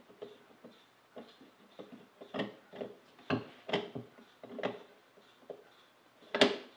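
Brass bezel of a marine chronometer case being turned backwards on its fine threads: a run of light clicks and rubs, then a sharper click near the end as the thread start drops into place.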